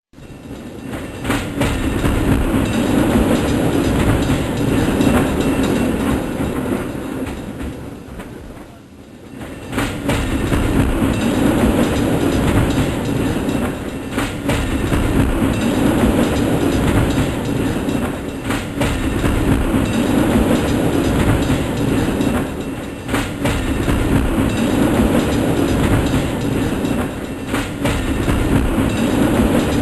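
Aerial cable car running: a continuous mechanical rumble with occasional sharp clicks and clatters. It drops quieter for a moment about eight seconds in, then picks back up.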